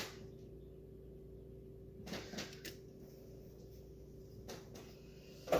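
Quiet kitchen handling sounds while seasoning meat: a couple of faint knocks and rustles about two seconds in and again near four and a half seconds, over a steady low hum.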